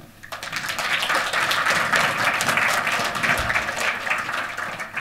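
Audience applauding, starting just after the start, holding steady and dying away near the end.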